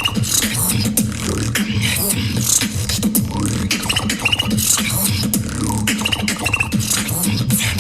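Beatboxing: a mouth-made beat of sharp clicks over a steady bass hum, with short high chirping squeaks that come back about every three seconds in a looped pattern.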